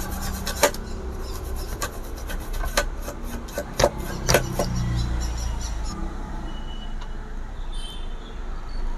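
Freshly soldered circuit board being cleaned around the replaced IC: a run of irregular rubbing strokes and sharp clicks that stops about five seconds in, over a low steady rumble.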